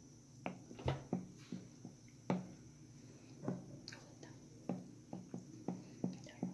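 Green plastic spoon stirring thick banana bread batter in a glass bowl, a series of short wet squishes and light knocks against the bowl, roughly two a second.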